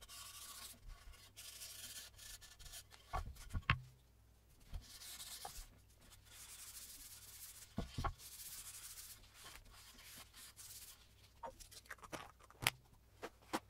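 A folded paper towel rubbing oil into a wooden cutting board, in several long passes of soft hiss. A few light knocks as the board is handled on the table.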